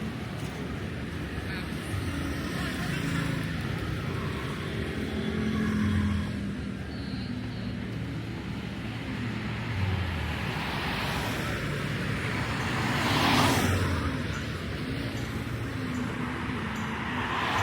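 City street traffic: engines running and vehicles passing, with one vehicle going by close about thirteen seconds in.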